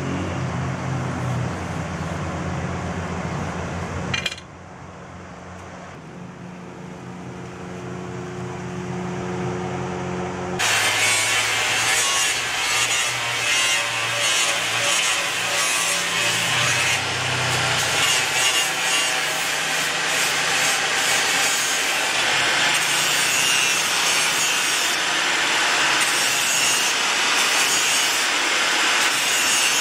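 A steady machine hum, broken by a click about four seconds in, then a quieter hum that slowly grows louder. About ten seconds in, an angle grinder bites into the spring-steel sickle blade with a sudden loud, steady grinding hiss as it polishes the surface.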